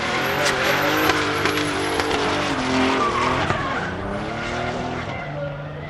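Rear-wheel-drive drift car sliding sideways under power: the engine revs hard and the tyres screech as they spin and smoke. The engine note rises and falls with the throttle, stepping down about three seconds in.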